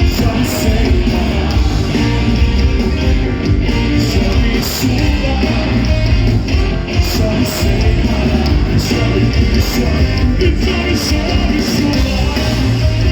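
Rock band music playing loudly with a steady beat.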